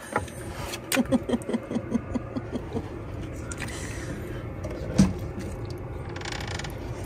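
Dog whining in a quick run of short whimpers, eager to give chase, with a single thump about five seconds in.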